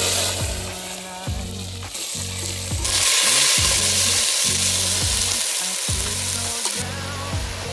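Vegetable sabzi frying and sizzling in a pot on a wood-fired chulha, the sizzle growing louder about three seconds in. Background music with a steady low beat runs underneath.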